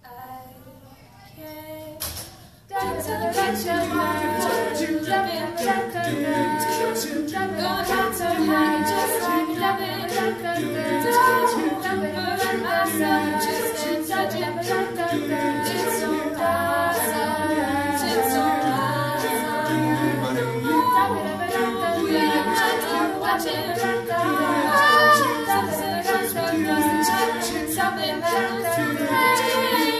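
Small mixed group of young men and women singing a cappella, several vocal parts at once. The singing is soft for the first two or three seconds, then the full group comes in loudly.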